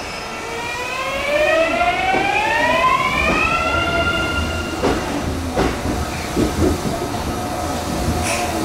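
Electric train's inverter-driven traction motors whining as the train starts to move for coupling: a stack of tones rises in pitch over about four seconds and then holds steady. A few sharp knocks follow as the wheels run over rail joints.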